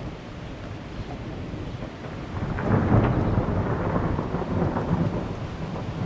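Rain with a deep roll of thunder that swells about two and a half seconds in and rumbles on.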